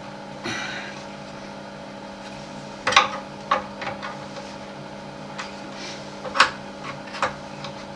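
Extractor fan humming steadily, with a few sharp clicks and taps of a metal chisel prising a silver cover off a toilet seat hinge. The loudest clicks come about three seconds in and again a little past six seconds.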